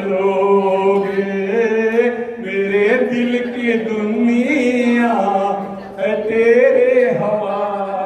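A man singing into a handheld microphone in long held notes that slide up and down, with a short break for breath about six seconds in.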